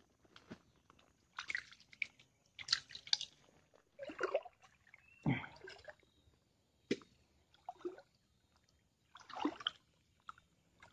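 Wading through shallow swamp water: irregular sloshing splashes as legs push through the water, roughly one every second or so.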